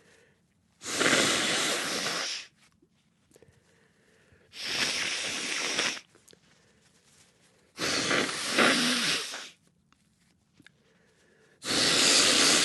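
A person blowing their nose into a tissue: four blows of about a second and a half each, a couple of seconds apart.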